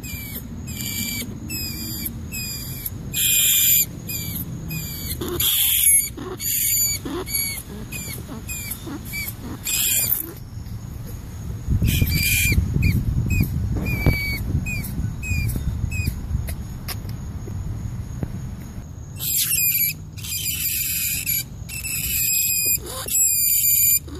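Rat squeaking: short high-pitched squeaks repeated about twice a second, broken by a few longer, harsher squeals, with a dense run of squeaks near the end.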